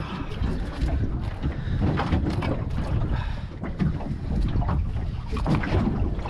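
Wind buffeting the microphone on a small open boat at sea, a loud uneven rumble, with scattered short knocks and rustles from handling on deck.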